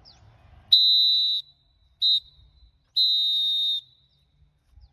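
Referee's whistle blown three times: a long blast, a short one, then another long one, each a steady high piercing tone. This is the futsal signal for the end of the second half of the match.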